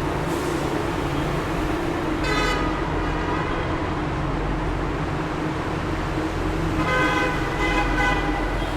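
Road traffic running through a highway tunnel: a steady, echoing rumble of passing vehicles. A vehicle horn honks briefly about two seconds in, and twice more near the end.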